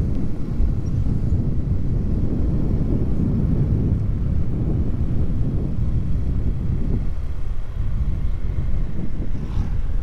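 Steady low rumble of wind buffeting the microphone and road noise from a moving vehicle travelling along a road.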